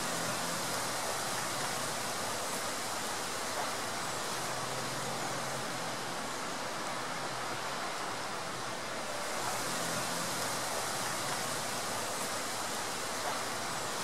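Soča river water rushing steadily, an unbroken hiss-like roar of flowing water with no change in level.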